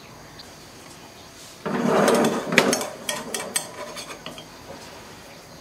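A metal spoon handling pitha filling in a frying pan: a rough scrape about two seconds in, then several light clinks of metal on the pan.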